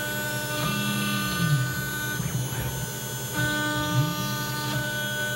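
CNC router spindle running as a small bit cuts walnut, a steady machine whine with a low tone that rises and falls every couple of seconds as the machine speeds up and slows through its toolpath.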